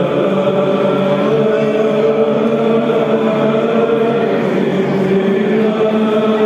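Byzantine chant sung by a choir of chanters, with long held notes over a steady drone (the ison).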